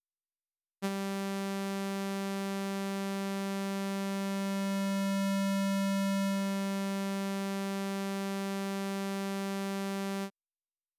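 A single held synthesizer note from the Spectra additive resynthesizer, starting as a sawtooth wave. Around the middle of the note its even harmonics are gradually taken away, wave-shaping it into a square wave, and then they are brought back to the full sawtooth before the note cuts off.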